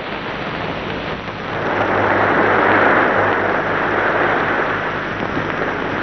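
Wind rushing past an exposed seaside windmill, swelling about a second and a half in, peaking midway and easing off, over a low steady hum.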